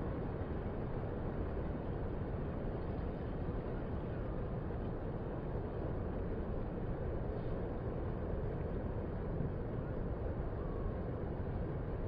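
Steady, low rumble of distant surf breaking on the beach, with no single wave standing out.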